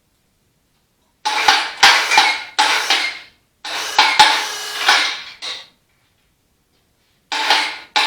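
Metal tools clinking and scraping against tractor steel parts in three spells, each a second or two long, with a faint ringing metallic note.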